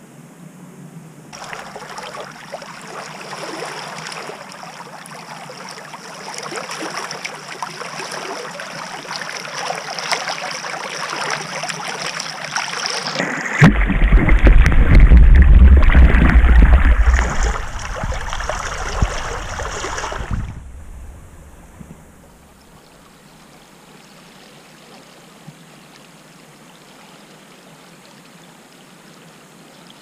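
Flood water splashing and churning for the first two-thirds. About halfway through there is a much louder, deep churning for a few seconds as the camera goes into the muddy water. It then drops to a faint, steady rush of shallow flowing water.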